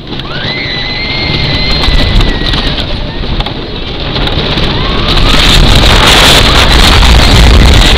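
Wooden roller coaster train rumbling and clattering down the track, with wind buffeting the microphone; the noise builds and is loudest in the second half. Near the start a rider lets out one long high scream.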